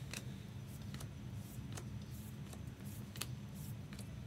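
Trading cards being flipped one at a time off a hand-held stack, making light irregular flicks and clicks of card edges, over a steady low hum.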